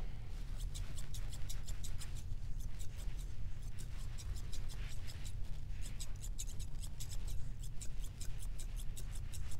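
Chunker grooming shears snipping through a puppy's leg fur in quick runs of snips, several a second, with short pauses between runs, over a steady low hum.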